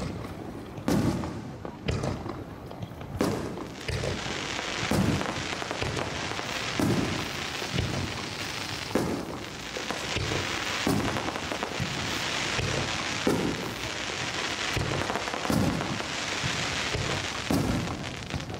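Aerial firework shells bursting in repeated booms, about one every one to two seconds. From about four seconds in until near the end, a dense crackling hiss runs beneath them.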